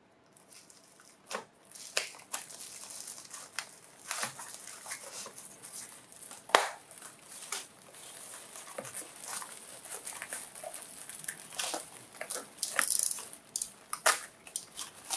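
Bubble wrap and tissue paper crinkling and rustling as they are handled and unwrapped, with irregular sharp crackles. The loudest snap comes about halfway through.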